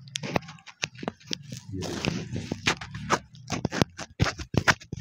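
Paper kites being handled and shuffled, the thin kite paper crinkling and crackling in a string of sharp, irregular clicks, with a denser rustle about two seconds in.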